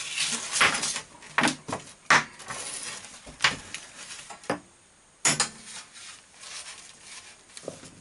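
Seat belt being handled and laid out: the webbing rustles and its metal hardware clinks and knocks several times, with a short quiet pause about halfway through.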